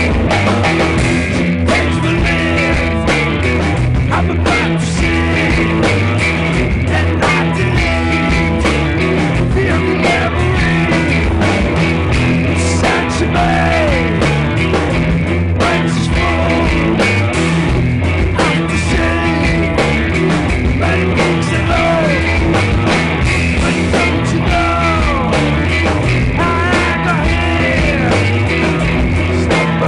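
Rock band playing a song, with guitar lines that bend up and down in pitch over steady drum hits.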